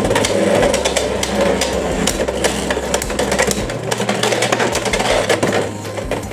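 Beyblade X spinning tops whirring as they battle, knocking together with many sharp clicks of collision.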